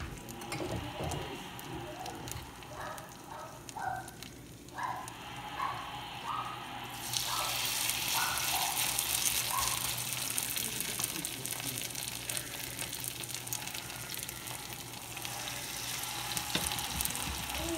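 Grated-potato cakes sizzling as they shallow-fry in a little oil in a nonstick pan. About seven seconds in, the sizzle becomes much louder as fresh spoonfuls of raw mixture go into the hot oil, and it stays loud.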